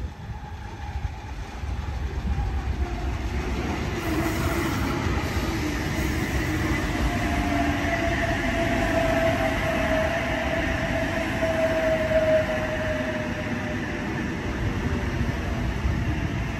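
Double-deck electric passenger train pulling into a station platform: wheels running on the rails, growing louder over the first couple of seconds as it comes alongside. A whine falls slowly in pitch as the train slows.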